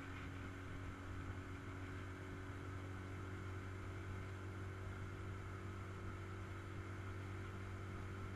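Small boat's motor running steadily at cruising speed, a low even hum with no change in pitch, heard from aboard the aluminium jon boat it pushes.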